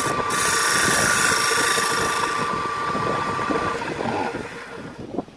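Electric motor of a small wood lathe running with a steady whine while the burl-wood piece spins, with a louder hiss for about two seconds near the start. The whine stops a little under four seconds in as the lathe is switched off and winds down.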